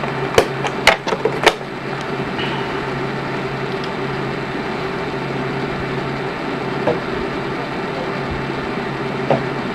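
Four sharp clicks in the first second and a half, like switches on a Sony Betacam SP broadcast camera being worked, then a steady electrical hum.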